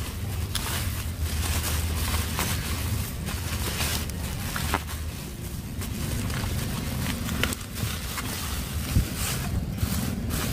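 Plastic bubble wrap rustling and crinkling as it is pulled open and unwrapped by hand, with scattered sharp crackles over a steady low rumble.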